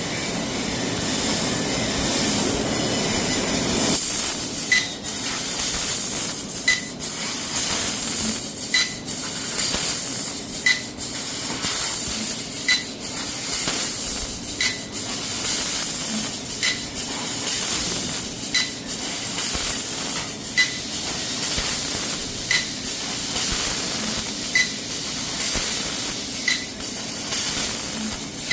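Tianchen CNC laser cutting machine working 6 mm plate: a steady hiss of assist gas at the cutting head. From about four seconds in, a short click with a brief tone repeats about every two seconds.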